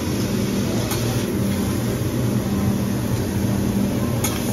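Vegetables sizzling on a hot teppanyaki steel griddle over a steady low rumble of the griddle's exhaust hood, with sharp clicks of the chef's metal spatula on the plate about a second in and near the end.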